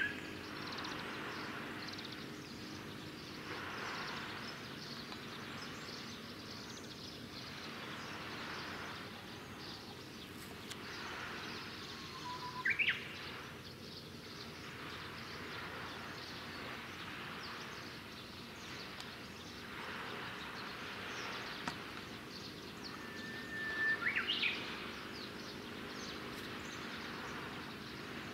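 Quiet shoreline ambience: a steady hiss that swells and fades every few seconds over a faint low hum, with a bird giving short whistled calls a few times. The loudest calls come about halfway through and near the end.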